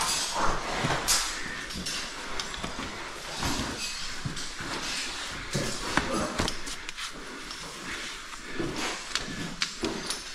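A caver working a rope with gloved hands among rocks: rustling and scraping, with scattered sharp clicks and knocks of gear and stone.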